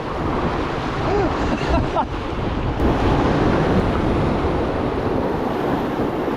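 Whitewater rapids rushing steadily around a raft, with wind buffeting the microphone.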